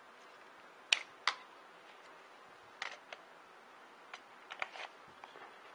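Sharp plastic-and-metal clicks and clacks of a Glock 19 pistol's magazines being handled: one magazine taken out and a 30-round magazine pushed into the grip. The two loudest clicks come about a second in, with smaller ones scattered after.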